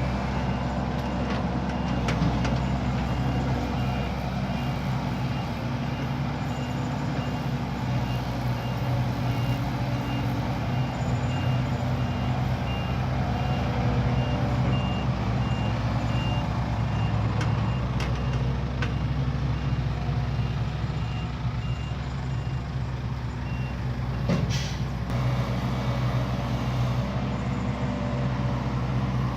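Heavy diesel dump truck running with its reversing alarm giving a long, steady row of high beeps as it backs up. The beeping stops about five seconds before the end, and a short burst of hiss follows.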